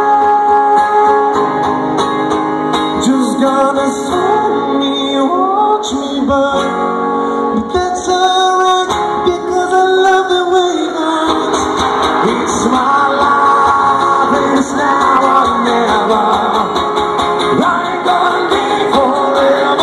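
Live band playing a medley of pop songs over the same four chords: strummed guitar and drums with singing, heard from within the audience.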